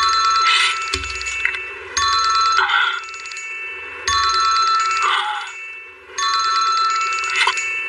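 Smartphone ringtone for an incoming call. A short electronic phrase of several clear tones repeats about every two seconds, with a briefer rougher sound between the phrases.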